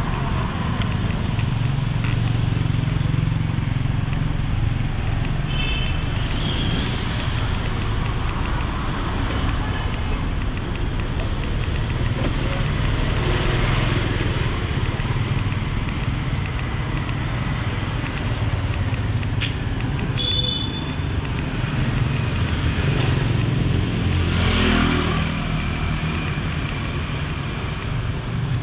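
Busy street traffic, a steady mix of motorbike and car engines running past, with voices of passers-by. Short high horn beeps come twice, about a fifth of the way in and again about two-thirds through. Near the end a vehicle passes close, its engine note rising.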